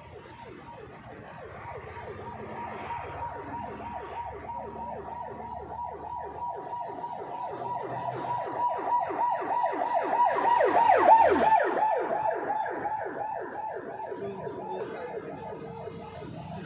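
Emergency vehicle siren sounding a fast yelp, about four or five falling sweeps a second, growing louder to its loudest about eleven seconds in and then fading as it passes.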